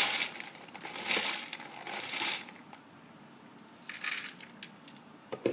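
Popped popcorn rustling and crunching as it is handled in a bowl: three quick rustles in the first couple of seconds, softer rustling about four seconds in, and a sharp knock near the end.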